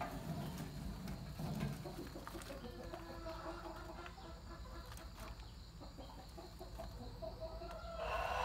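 Chickens clucking, with a louder, longer call near the end.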